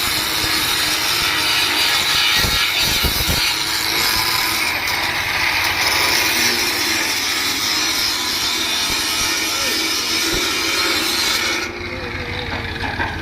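Electric welding arc giving a steady hiss that stops suddenly near the end.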